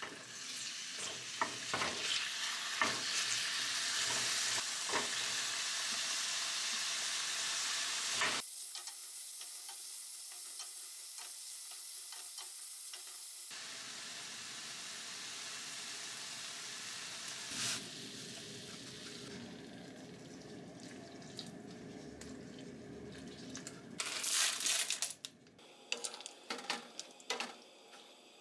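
Sliced pork sizzling in a frying pan as it is stirred, with knocks and scrapes of a wooden spatula against the pan. The sizzle drops sharply about eight seconds in, and a quieter frying sound follows. A burst of spatula scraping and knocking comes near the end.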